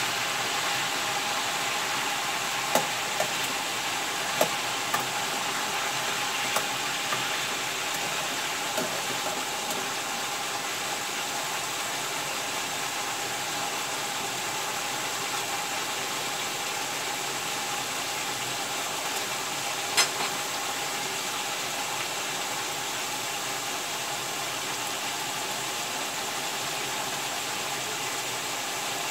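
Chicken pieces frying in a pan, a steady sizzling hiss as the water from the chicken cooks off. A few sharp taps of the plastic spatula against the pan come in the first several seconds, and there is one more click at about twenty seconds.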